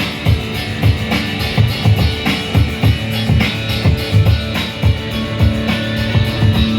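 Live rock band playing an instrumental break without vocals: drum kit keeping a steady beat under electric guitars and bass.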